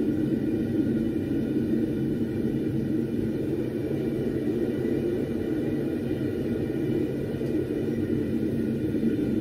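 Homemade double-burner propane forge, built from an old propane tank, running: a steady, even rush from its burners with no change in level.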